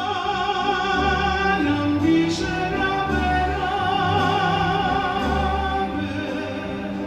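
A guarania song: a singer holds one long note in an operatic style over slow accompaniment with low bass notes.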